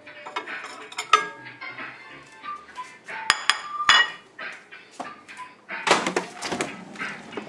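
Clinking and clatter: a few sharp, ringing clinks in the middle and a louder rattling clatter about six seconds in, with short high tones between them.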